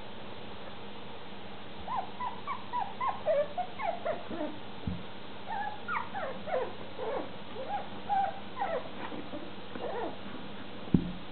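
Litter of four-week-old smooth fox terrier puppies whimpering and yipping as they play, a quick string of short high squeaks from about two seconds in until near the end. A single thump comes just before the end.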